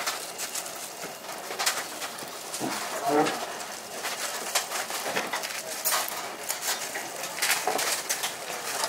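Gloved hands handling gimbap on a bamboo rolling mat: soft rustling and scattered light clicks and taps as fillings are laid on the laver and the roll is pressed and rolled. There is a short low pitched sound about three seconds in.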